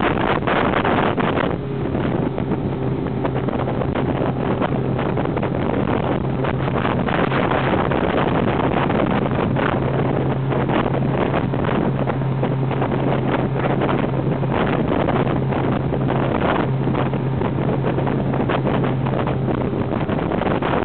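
Motorboat engine running steadily with the boat under way at speed, a constant low hum under heavy wind buffeting the microphone.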